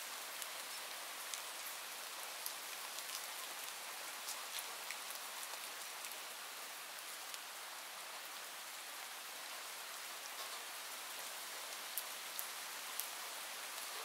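Steady rain falling, a constant hiss with scattered sharp drop ticks throughout.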